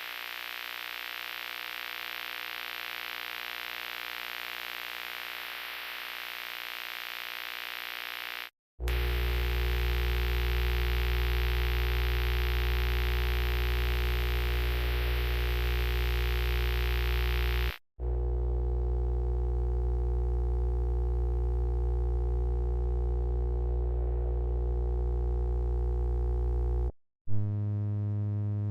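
A series of steady electrical hums, each about nine seconds long and cut off abruptly before the next starts. The first hums with a hiss over it; the next two are deeper and louder; another buzzing hum begins near the end.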